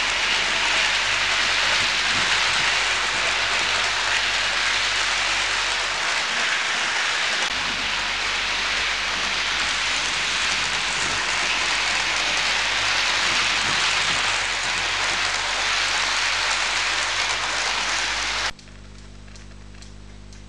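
OO gauge model trains running on the layout track, a loud, steady rushing rattle of wheels and motors. It cuts off suddenly near the end, leaving a much quieter steady hum.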